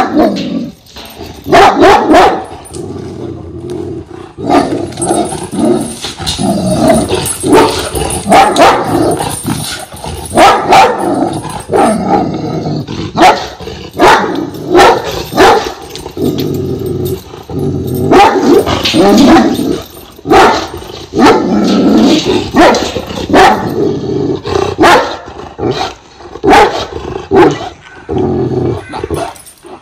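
A one-year-old Kangal dog barking deeply over and over, with growling between the barks. It is guarding against strangers it is unhappy about standing outside its enclosure.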